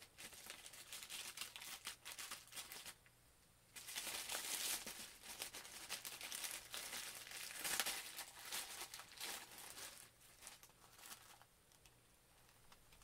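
A plastic mailer bag and its paper wrapping crinkling and tearing as a package is opened by hand, in irregular crackly handling noise. There is a brief pause about three seconds in, and louder rustling just after it.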